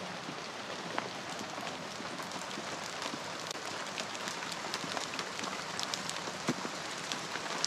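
Steady rush of water with many scattered small drips and splashes.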